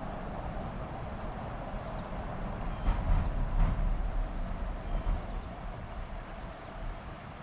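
Water released through a hydroelectric dam's turbines rushing in over river rocks as the river rises during power generation: a steady rushing, with a louder low rumble for about a second around three seconds in.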